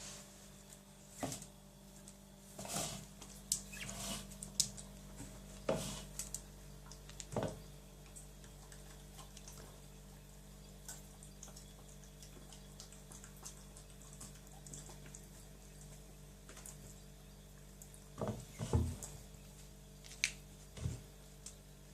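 Dog rubbing its porridge-smeared nose along the floor and against its bowl: scattered short, wet-sounding squeaks and clicks, with a cluster of louder ones near the end.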